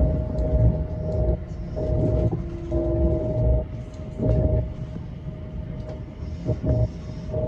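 Commuter train running on the line, heard from on board: a continuous low rumble of wheels on rail that swells and fades unevenly, with a steady whining tone that cuts in and out.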